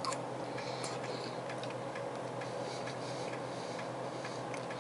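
Faint light ticking, a few small clicks a second, over a steady low hum of room tone.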